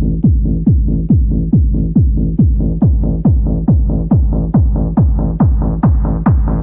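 Electronic dance music in a techno style: a steady kick drum a bit over twice a second, each beat dropping in pitch, over a held bass line, the sound growing brighter toward the end.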